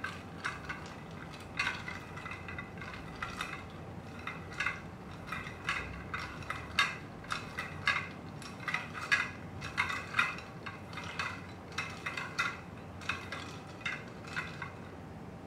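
A spatula folding chopped chocolate into whipped cream in a glass mixing bowl, knocking and scraping against the glass about twice a second.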